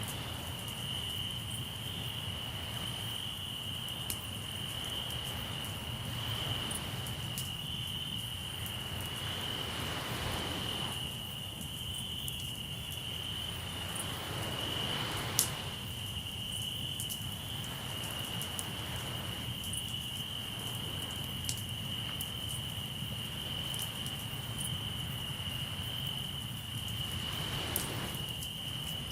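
Crickets trilling in one steady high continuous tone, with a campfire crackling and popping now and then, one louder pop about halfway through. Soft swells of surf wash in and fade several times.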